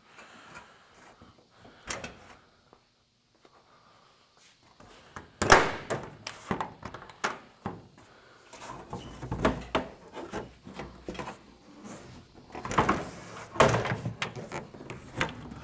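Irregular clunks, knocks and rattles of a large body panel being worked loose and lifted off a trophy-truck body, with the heaviest knocks about five seconds in and again near the end.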